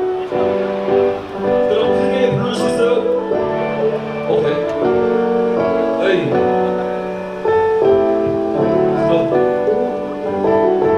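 Live pop/hip-hop song played loud over a concert PA: sustained piano/keyboard chords, with a male voice singing over them at times.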